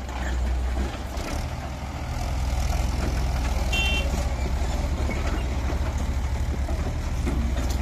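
Mahindra 575 DI tractor's diesel engine running steadily under load as it pulls a loaded trolley away, getting louder about two seconds in. A brief high beep sounds about four seconds in.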